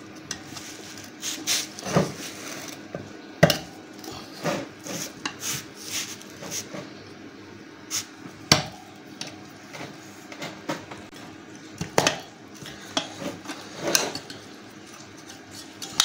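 Steel tyre levers clinking, knocking and scraping against a motorcycle's chromed spoked wheel rim as the tyre bead is pried off the rim. The sound is a string of irregular sharp metallic clicks and knocks.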